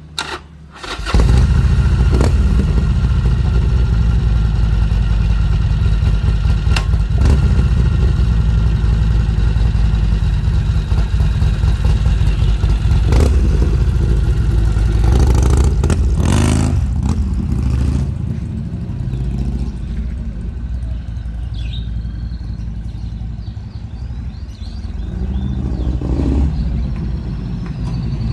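2012 Harley-Davidson Sportster XR1200X's 1200 cc V-twin, breathing through an aftermarket Vance & Hines exhaust, starts about a second in and runs loud, with repeated throttle blips. From about 18 seconds the sound drops lower, then swells again near the end as the bike is ridden back.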